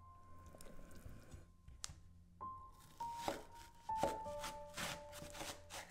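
Soft background piano music, over which a knife slices lengthwise through a leek on a bamboo cutting board from about halfway in, giving a few crisp cutting strokes.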